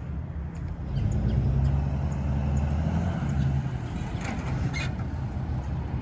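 Pickup truck engine revving as it reverses quickly with a round hay bale in the bed, getting louder about a second in and easing off a couple of seconds later. A couple of short knocks follow about four to five seconds in, as the truck brakes and the bale shifts back in the bed.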